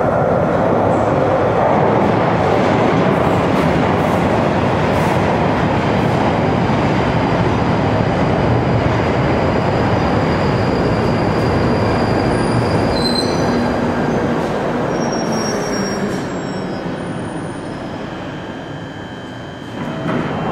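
London Underground 1995 Tube Stock train running into the station and braking to a stop, with thin high brake and wheel squeals as it slows. The dense running rumble fades away over the last several seconds as the train halts.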